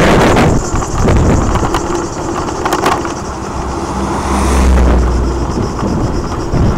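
Wind buffeting the microphone over the engine and tyre noise of a vehicle driving along a road. A deeper hum swells briefly about four seconds in.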